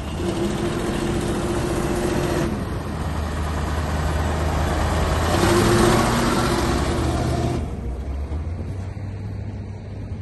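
Expedition truck's engine running as the truck pulls away and drives past close by, loudest a little past halfway, then dropping away.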